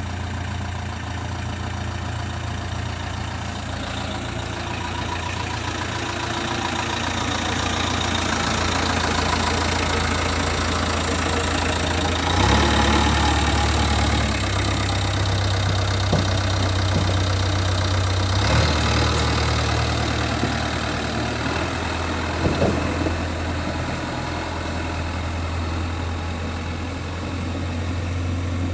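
Diesel engine of a JCB 3DX backhoe loader running steadily as it works. Its note deepens and rises in load about twelve seconds in and settles back about eighteen seconds in. There are a couple of short knocks a few seconds later.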